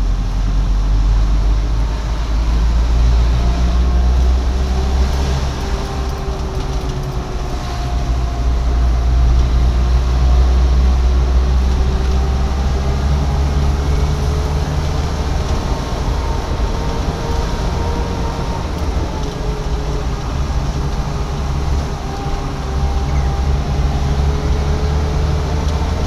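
Vehicle engine and road noise heard from inside the cab while driving: a steady low rumble, with a faint whine that slowly drifts up and down in pitch.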